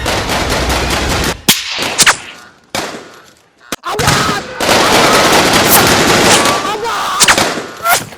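Rapid automatic gunfire, broken for a few seconds by single sharp shots about one and a half to four seconds in, then continuous fast fire again.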